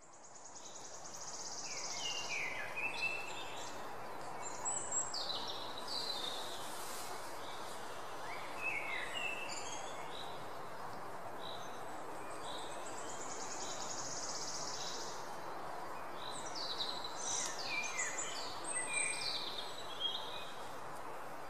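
Outdoor ambience: a steady hiss of background noise with birds chirping in scattered bursts of short falling notes, and a buzzy high trill twice. It fades in over the first two seconds.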